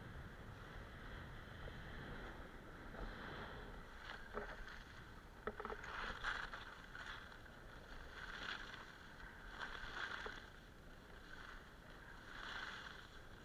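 Skis swishing and scraping over packed snow during downhill turns, swelling and fading in surges every second or two, with a few sharp knocks between about four and six seconds in.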